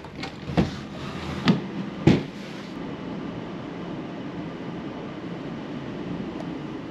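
Three sharp knocks in quick succession over about a second and a half, then a steady low rumble.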